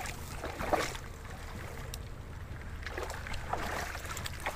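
Lakeshore ambience: a steady low rumble of wind on the microphone and faint water lapping at the shore, with a few soft crunches of steps on gravel.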